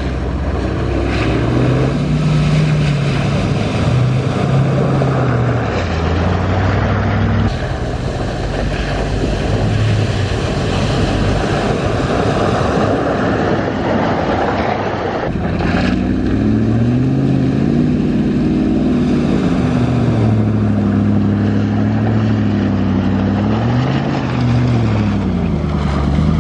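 Four-wheel-drive engine revving up and down as the truck drives, over a steady rushing noise. The sound changes abruptly about a third and about halfway through.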